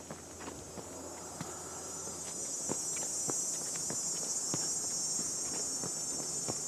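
A steady high-pitched insect drone that grows louder over the first few seconds and then holds, with footsteps on a dirt forest trail.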